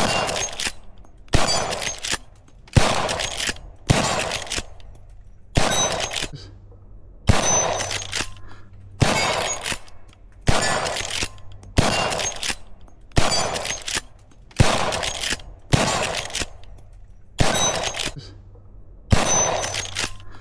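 Henry lever-action rifle in .357 Magnum / .38 Special fired shot after shot, about one shot every second and a half. Each sharp report is followed by a long echoing tail.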